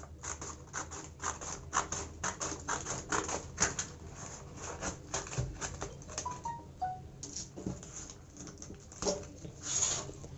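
Cardboard packaging of a mini keyboard being cut open: a run of quick, irregular scratching and crackling strokes, with a few brief squeaks a little past halfway and a louder scrape near the end.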